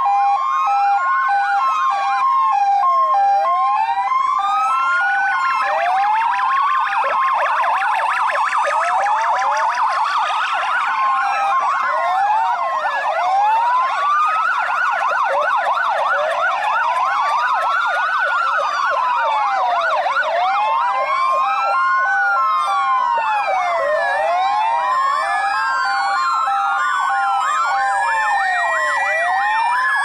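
Several Czech police car sirens sounding together. A slow wail rises and falls every few seconds, over a steady alternating two-note hi-lo tone, with a fast yelp through the middle stretch.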